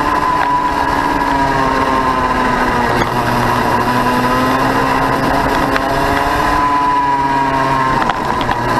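KA4 junior racing kart's 100cc two-stroke engine at racing speed, heard from onboard: a loud, steady buzz whose pitch rises and falls gently as the driver works through corners, with a brief dip near the end.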